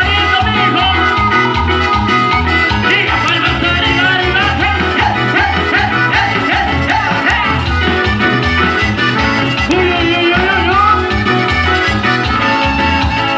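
Latin tropical dance music from a band, with a steady bass beat under melody lines.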